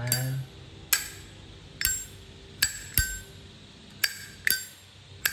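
Zippo lighter's metal lid being flipped open and snapped shut, sharp metallic clinks with a short ring, about eight of them at uneven intervals.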